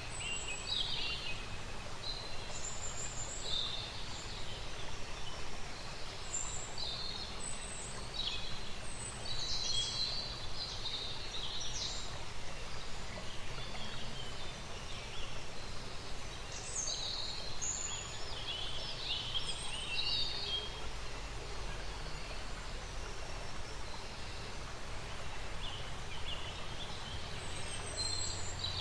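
Ambience of small birds chirping and twittering on and off, high and short, over a steady background hiss.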